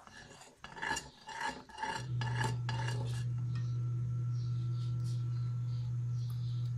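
A spoon scraping and stirring through thick, boiling yema spread in an aluminium pot, about two strokes a second, stopping about three seconds in. A steady low hum starts about two seconds in and holds.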